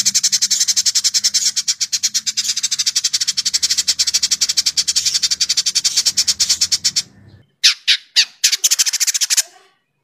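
Village indigobird chattering: a fast, dense run of sharp high notes for about seven seconds, then after a short break a few shorter bursts.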